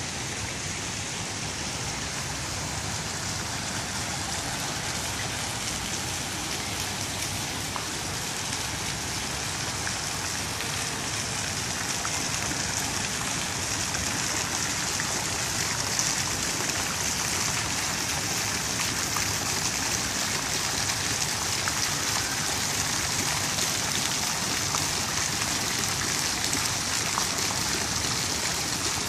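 Small fountain jets of a splash pad spraying up from a tiled floor and splashing back down, a steady watery hiss that grows a little louder about halfway through.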